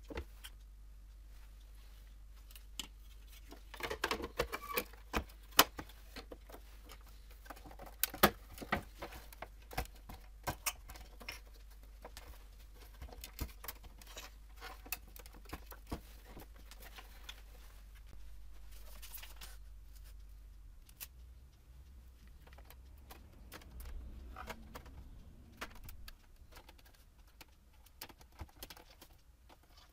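Plastic headlight housing parts being handled and fitted together by hand: scattered clicks, taps and light rattles of hard plastic, with a few sharper knocks about five and eight seconds in, and quieter handling as a rubber seal strip is pressed into the housing's edge channel.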